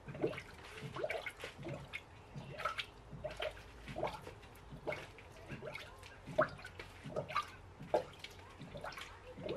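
Coolant gurgling and bubbling in a filling funnel on the radiator neck of a 1989 Dodge D100, with irregular small pops about one to three times a second. This is air trapped in the refilled cooling system coming up through the coolant as bubbles.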